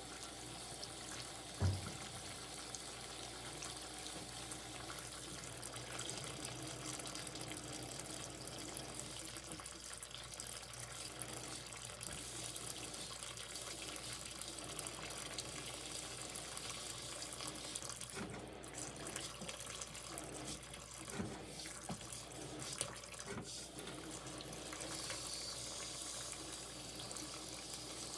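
Water running steadily into the tub of a portable washing machine as it fills. A single low thump about two seconds in.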